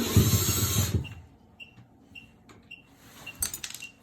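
A small electric motor whirs for about a second, then small metallic clicks and rattles come near the end.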